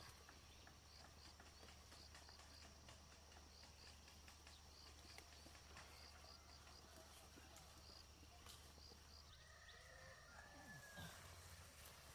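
Near silence: faint outdoor ambience with a string of short high chirps, about two a second, and a faint drawn-out falling call near the end.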